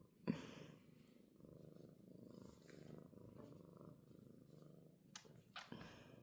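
Kitten purring softly and steadily, with a brief thump about a third of a second in and a few faint clicks near the end.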